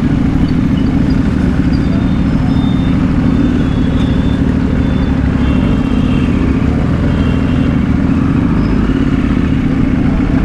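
A motorcycle engine running steadily at low speed in slow traffic, heard from the rider's own bike as a continuous rumble.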